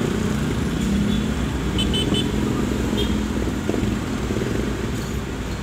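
Delivery truck's engine running steadily while driving, heard from inside the cab, with street traffic around it.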